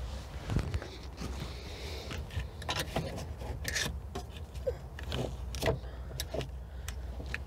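Irregular clicks and light metallic taps of hand work on a car's trunk lift support fittings, over a steady low hum.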